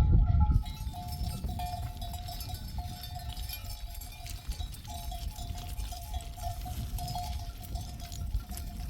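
Bells on a grazing flock of sheep clinking and ringing in a loose, uneven jangle, with a low rumble during the first half second.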